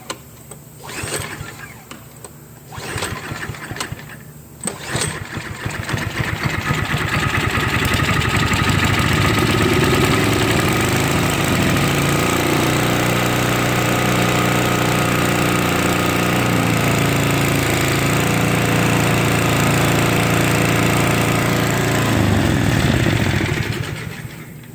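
Old Snapper snowblower's small engine pull-started: a few recoil pulls, then it catches about five seconds in, runs steadily and dies near the end. It quits once the gas poured into the cylinder runs out, a sign the carburetor isn't feeding fuel and needs cleaning or replacing.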